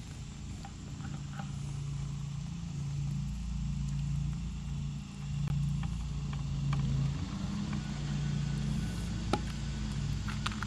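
A low, steady engine-like hum running throughout, its pitch shifting slightly about seven seconds in, with a few faint clicks near the end.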